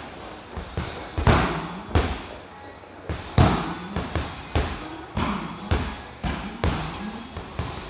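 Boxing-gloved punches landing on a hanging WINDY heavy bag: a dozen or so thuds in uneven combinations, roughly one to two a second, the hardest about a second and a half and three and a half seconds in.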